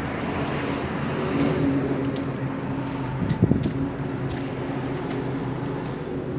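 Vehicle engine running steadily with a low drone, and a brief knock about three and a half seconds in.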